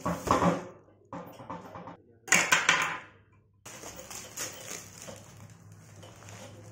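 Plastic packaging crinkling and rustling as a courier parcel wrapped in clear plastic film is handled and its wrapping pulled at. It comes as short louder bursts with brief breaks in the first three seconds, then settles into a softer, steady rustle.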